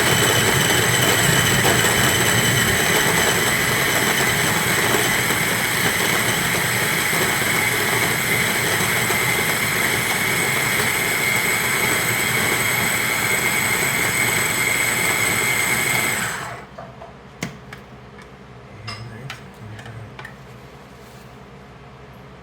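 Electric blender running steadily with a high whine, puréeing chopped bell peppers and garlic, then switched off about sixteen seconds in. A few light clicks and knocks follow.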